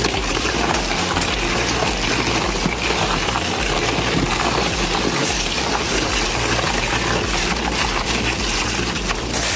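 Industrial metal shredder tearing up car tires: a steady, dense grinding noise with constant small crunches and no let-up.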